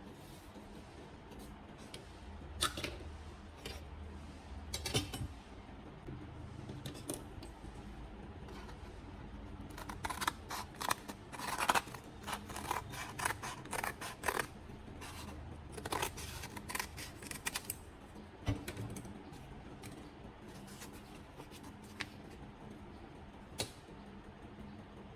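A series of irregular short clicks and snips from small hand-tool work, sparse at first and coming thick and fast in the middle, over a faint low hum.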